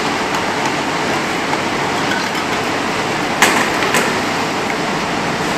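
Steady loud machine noise of a ventilation or air-conditioning unit, with two sharp clicks about three and a half and four seconds in.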